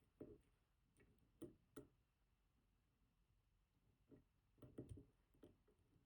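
Faint, irregular clicks and taps of a lock pick working the spring-loaded sliders inside an IKON WSW high-security cylinder, with about ten small clicks spread unevenly, several bunched together near the end.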